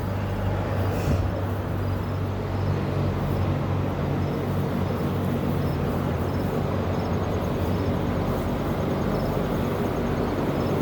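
Steady low machine hum, like a motor or fan running, with a faint high ticking repeating a few times a second.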